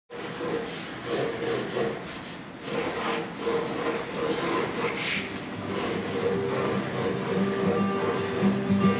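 Graphite pencil scratching across paper in repeated sketching strokes, some short and some drawn out. Music fades in faintly near the end.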